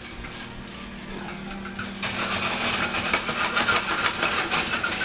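Popcorn popping in a lidded saucepan on an electric stove: sparse at first, then from about two seconds in a dense, fast run of pops that keeps getting louder.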